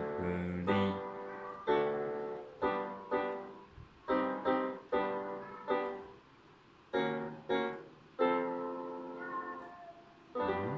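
Casio electronic keyboard playing a piano sound: chords struck one after another at an uneven pace, each left to ring and fade away, with short pauses and a last chord near the end.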